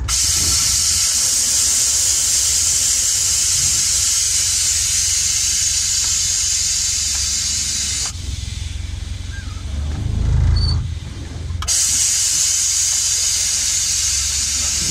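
Miniature railway locomotive hissing loudly and steadily, like gas blowing off. The hiss cuts out about eight seconds in, a low rumble swells a couple of seconds later, and then the hiss starts again.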